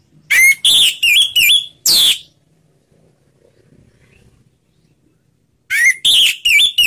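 Orange-headed thrush (anis merah) singing in the relaxed, open ngeplong style: two short phrases of loud, clear whistled notes that slide up and down. The first has five notes and ends in a long falling whistle. The second, near the end, has four notes.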